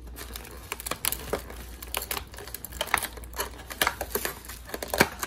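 Clear plastic takeout clamshell box crackling and clicking as it is handled and pried open, with plastic bags crinkling; irregular sharp clicks, the sharpest near the end.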